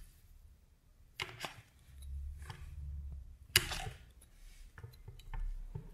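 Polymer clay being trimmed with a flat clay blade on a ceramic tile: a few light clicks and taps of the blade, the sharpest about three and a half seconds in.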